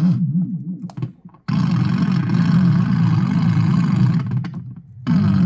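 Hand-cranked analog oscillator drone played through an amp: a buzzy electronic tone whose pitch wavers up and down with the crank. It drops out about a second in and comes back suddenly, then fades away again near the end before returning.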